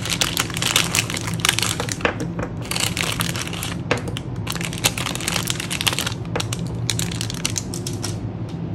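Clear plastic cellophane packaging crinkling and crackling as hands open the sleeve and slide out watercolour paint tubes, in irregular bursts that thin out near the end.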